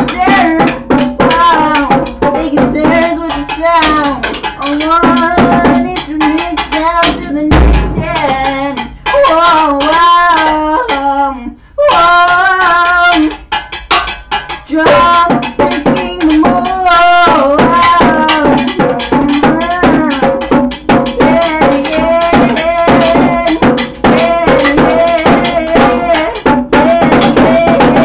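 Rapid drumming with sticks on a small homemade drum kit, drum and cymbal, played fast and continuously over a melody that slides up and down in pitch. The hits break off briefly about twelve seconds in.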